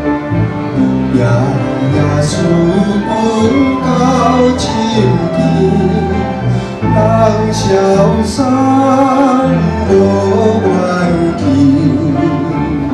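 A man singing a slow Taiwanese Hokkien ballad into a microphone, backed by a small live band of flute, acoustic guitar, electric bass and cello.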